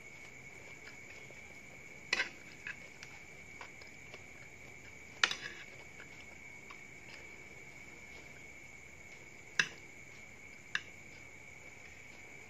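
Metal spoon and fork clinking and scraping against a plate as food is scooped up: a handful of sharp clinks, loudest about five and ten seconds in, over a steady high-pitched tone.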